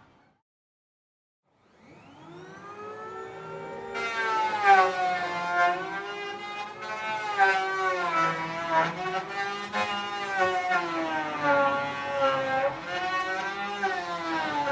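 Electric hand planer starting after a short silence: the motor whines up to speed over about two seconds, then runs loud and high-pitched, its pitch rising and falling.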